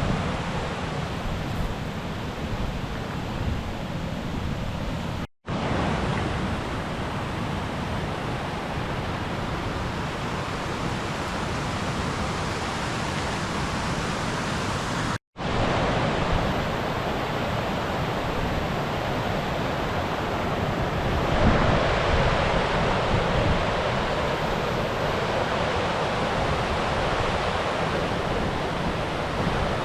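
Mountain stream rushing over rocks, a steady hiss of running water. It cuts out twice for a moment and grows louder and brighter about two-thirds of the way through.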